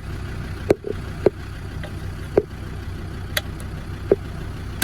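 About five sharp clicks and knocks as plastic interior trim is pressed and clipped into place, over a steady low hum.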